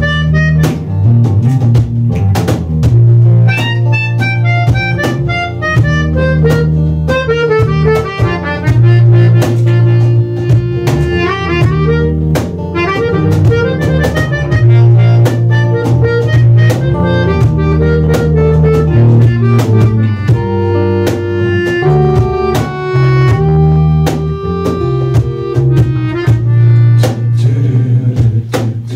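Instrumental break by a small acoustic band: a melodica plays quick runs of notes over strummed acoustic guitar, electric bass guitar and a steady cajon beat.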